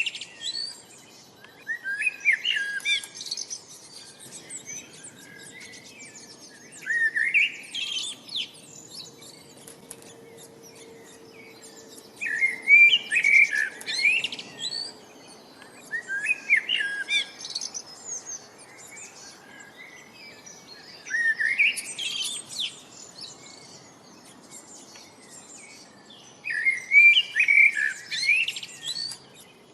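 Birdsong: short bursts of rapid, high chirping phrases about every five seconds, the loudest a little under halfway through and again near the end, with a faint steady background hiss between them.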